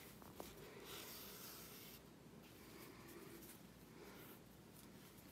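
Near silence with faint, intermittent rubbing: embroidery floss being drawn through a knitted doll's face as stitches are made.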